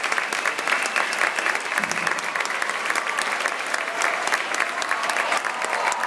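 Large crowd of students applauding steadily in a school gymnasium, a dense continuous patter of many hands clapping.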